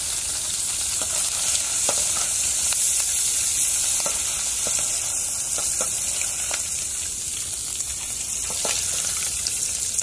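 Small masala-coated river fish deep-frying in hot oil in an aluminium kadai: a steady, high sizzle, with a few faint clicks and scrapes as a slotted steel spoon stirs them.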